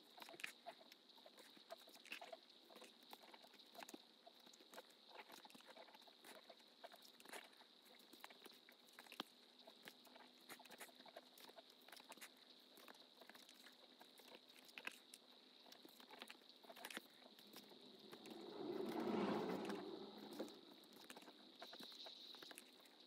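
Faint scattered small clicks and rustles of handwork over a faint steady high whine, with a louder rustling swell about nineteen seconds in.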